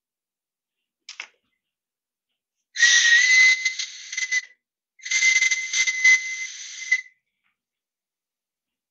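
A hand-made, still unfired clay whistle tube, the mouthpiece of a water whistle with no water chamber yet, blown twice to test it: two breathy whistles of about two seconds each, each at one steady high pitch with a lot of air noise. A short faint puff of breath comes about a second in.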